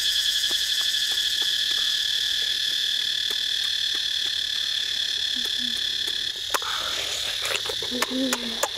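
Steady high buzzing chorus of forest wildlife, its tone changing about six and a half seconds in. Scattered small clicks and crunches of chewing on roasted duck come through it, and there are more of them near the end.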